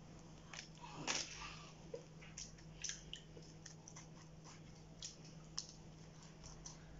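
Faint soft wet dabs and small scattered clicks of egg wash being brushed onto raw dough, with a low steady hum underneath.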